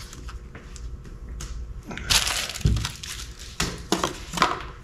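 Packaging being handled: crinkling and rustling, with a longer crinkle about two seconds in and a few knocks.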